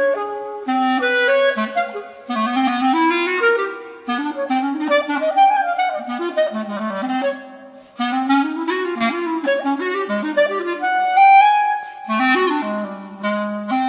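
Solo B-flat clarinet playing quick, wide-ranging runs and leaps in a contemporary classical piece, broken by a few short pauses.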